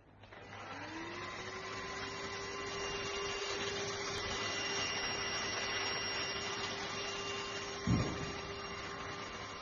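Cordless handheld vacuum cleaner switched on, its motor spinning up within the first second to a steady whine over a rush of air. A dull thump about eight seconds in.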